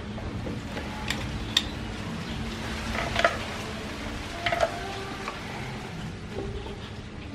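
Scattered sharp clicks and taps from a plastic toy fishing rod being handled over a basin of water, over a steady low background noise.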